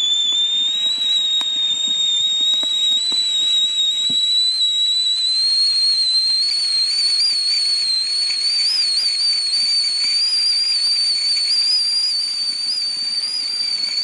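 Kelly Kettle whistling at the boil: one steady high whistle that slowly rises in pitch and wavers slightly, with faint crackles from the wood fire beneath it.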